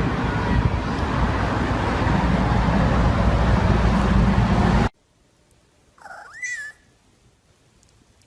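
A loud, steady rushing noise that cuts off suddenly about five seconds in. About a second later a cat meows once, with a fainter second call starting right at the end.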